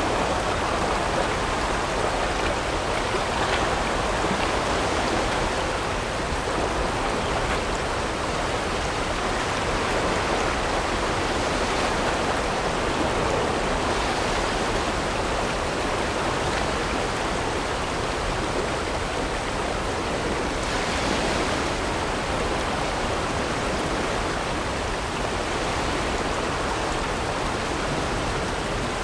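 River water rushing through a whitewater rapid, a steady even rush.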